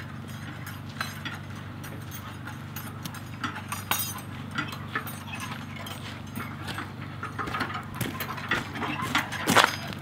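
Footsteps on snow together with the creaking and clinking of two metal water buckets on their handles as they are carried, getting louder and closer toward the end.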